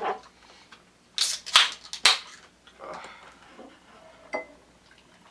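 Beer cans being cracked open: sharp snaps of the pull tabs and short hisses of escaping gas, three in quick succession about a second in.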